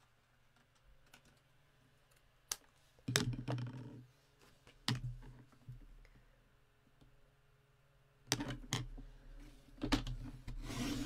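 Cardstock being slid into place on a plastic sliding-blade paper trimmer: a few sharp clicks and rustles as the card is positioned and the cutting rail is lowered, then a short scratchy hiss near the end as the blade is drawn through the card.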